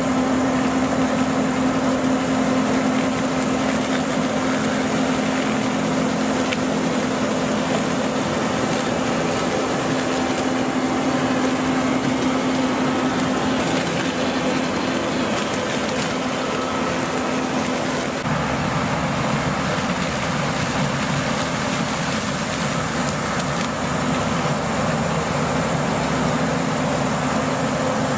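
Claas Lexion 670 combine harvester running steadily at work, a constant engine hum under the noise of the machinery. The sound changes abruptly about two-thirds of the way through, the hum dropping back.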